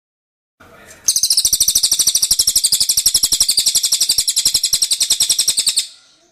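A cililin songbird singing one long, rapid, high-pitched trill of evenly repeated notes. The trill starts about a second in and breaks off shortly before the end.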